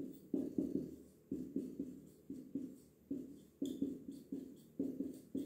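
Felt-tip marker writing on a whiteboard: a quick run of short strokes and taps as a word is written, about three a second.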